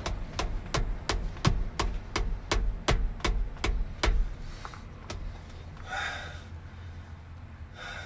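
Rubber mallet striking the gear shift lever of a 1995 Dodge Ram 3500, about a dozen quick blows at roughly three a second, driving the tight, shimmed lever down onto its shifter. The blows stop about four seconds in, followed by two lighter taps.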